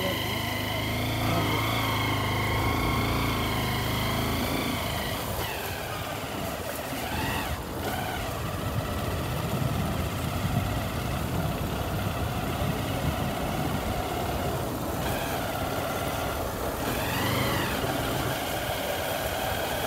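Vehicle engine running while driving along, its pitch rising and falling several times with the throttle, over a steady rush of noise.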